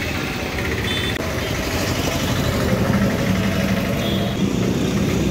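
Steady street noise with a vehicle engine idling, a low, even rumble, with a few brief high-pitched tones about a second in and again near the end.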